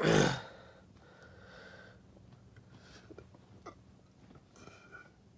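A short, loud rush of breath right at the start, then faint breathing and a few small mouth clicks: a person drawing in air ahead of a deliberate burp.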